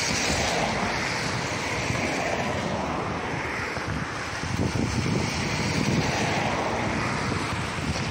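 Wind buffeting the microphone, gusting harder about halfway through, over the low rumble of a distant train.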